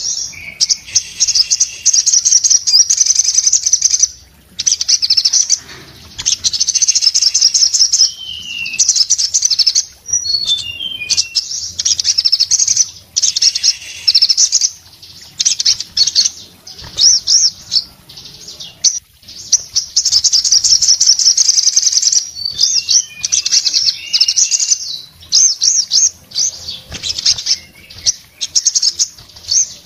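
Male olive-backed sunbird singing hard: loud, rapid, high twittering trills in bursts of one to three seconds with short pauses between, mixed with a few short down-slurred chirps.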